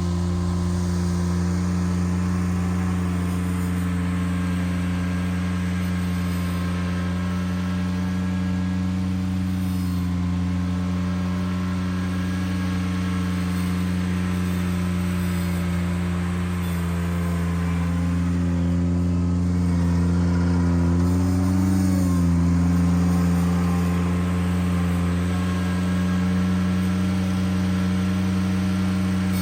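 Ventrac compact tractor's engine running steadily, with a brief rise and fall in pitch about two-thirds of the way through.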